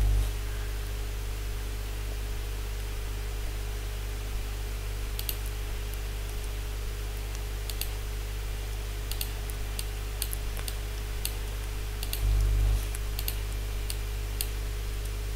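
Scattered sharp clicks of a computer keyboard and mouse, singly and in small groups, over a steady low electrical hum. A brief low thump comes about three quarters of the way through.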